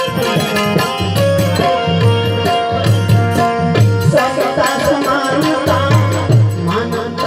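Live Gujarati devotional folk music: a harmonium playing held notes and melody over a steady hand-drum beat, with light percussion.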